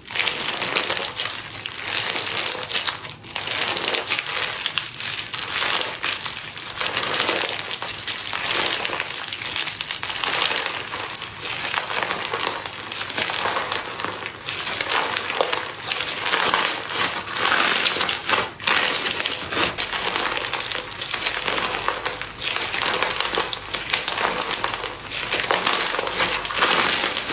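Slime being handled, giving a dense, continuous crackling of many small pops and clicks.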